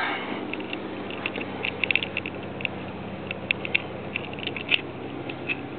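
A steady low hum with many light clicks and ticks scattered over it, a couple of them louder about two seconds in and again near the end.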